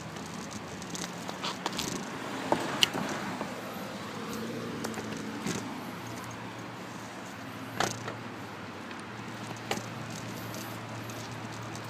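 Bicycle riding along paved footpaths: a steady rolling and wind noise with several sharp knocks and clicks from the bike and its mount over bumps. The loudest two come about a quarter of the way in.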